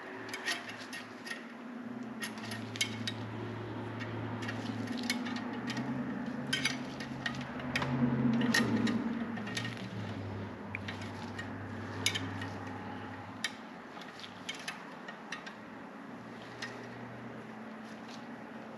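Scattered sharp metallic clicks and clinks of hand tools and hardware being handled during rear axle assembly, over a low hum that comes and goes.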